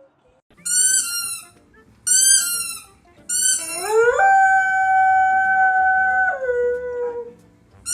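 A dog howling: three short, high, falling yelps about a second apart, then one long howl that rises, holds a steady pitch for about two seconds, and drops lower before fading out.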